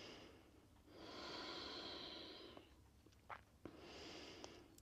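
Faint, slow breathing of a person holding a yoga pose: a long breath about a second in and another near the end, with two soft clicks between them.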